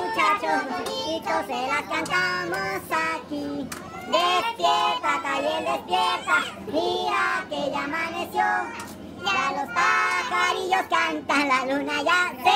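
A group singing a birthday song together, children's voices prominent, in phrases of long held notes with short breaks between them.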